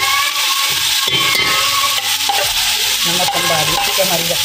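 Hot oil sizzling steadily in a large aluminium cooking pot, with green chillies frying in it as ground spices and salt are sprinkled in.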